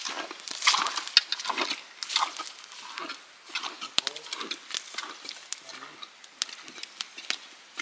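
Footsteps in rubber boots crunching through dry grass and brush on a hillside, about two steps a second, louder at first and fading after about three seconds, with a single sharp click near the middle.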